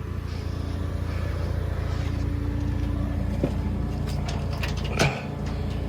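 Forklift engine running steadily, with a short clank about five seconds in.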